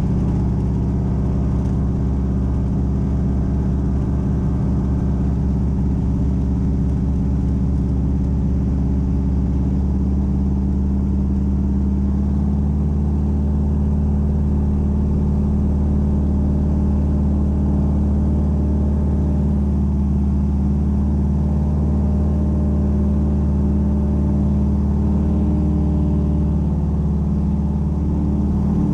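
AT-6 Texan's Pratt & Whitney R-1340 nine-cylinder radial engine and propeller running steadily at takeoff power during the takeoff roll, heard from inside the cockpit.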